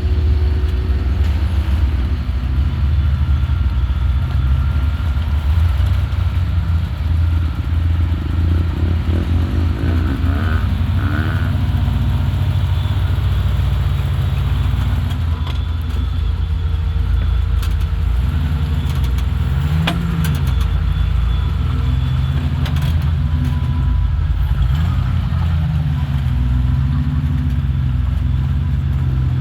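Off-road truck engine running at low revs, its note rising and falling a few times in the second half as the throttle is worked, with a few knocks and clatter in the middle.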